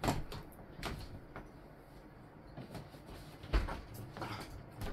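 A few scattered knocks and clunks of someone moving about and handling things out of sight, fetching a toolkit.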